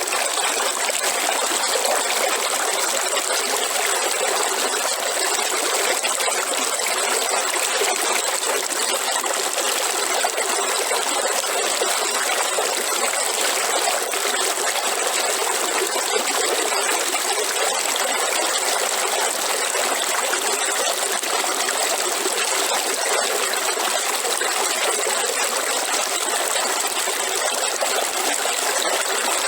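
River water running over rocks: a steady, even rush of flowing water with no breaks.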